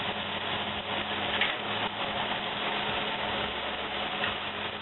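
Steady noise of a stove's exhaust fan running, with a low hum, over shredded cauliflower frying in hot olive oil in a cast-iron skillet.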